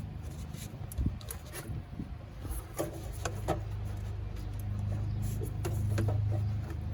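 Scattered clicks, knocks and scraping as a tight-fitting part is worked loose by hand in a cramped engine bay, over a steady low hum that grows stronger about halfway through.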